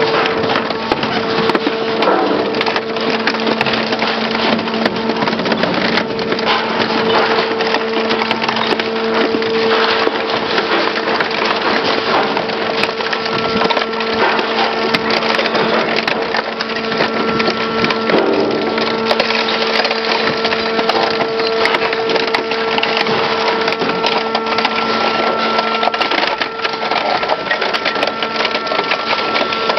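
Industrial rotary shear shredder's cutter shafts tearing up a crushed car body: dense, continuous crunching and cracking of sheet metal over a steady hum, with a thin whine joining about halfway through.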